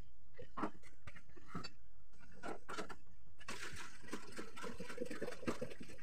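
Dishes and kitchen containers being handled on a counter: a few light knocks and clinks, then a stretch of rustling from about halfway through.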